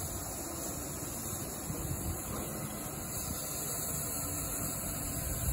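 Steam-hauled train running on the track below, a steady rumble with a hiss over it.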